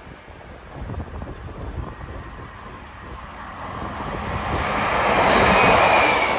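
Two-car Transport for Wales diesel multiple unit approaching on the line and passing close by. Its engine and wheel noise swells to a peak about five to six seconds in and begins to fade at the very end. Gusty wind buffets the microphone throughout.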